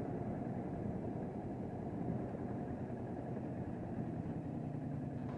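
Kawasaki Vulcan S 650's parallel-twin engine running steadily at cruising speed, under a haze of wind and road rumble.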